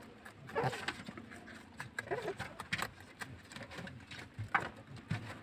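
Rabbits moving about on a wire-mesh hutch floor strewn with greens: scattered light taps and rustles at irregular intervals.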